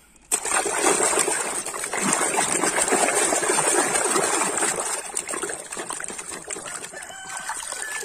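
A hand splashing and swishing water in a plastic tub while washing a plastic toy. The splashing starts suddenly, is loudest for the first few seconds and grows softer after about five seconds.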